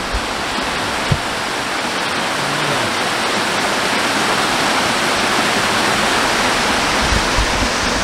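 Waterfall pouring over a rock step into a stony stream: a steady rushing noise that grows a little louder over the first few seconds.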